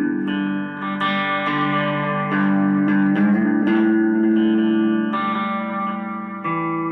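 Instrumental music: layered held notes and chords that change every second or so.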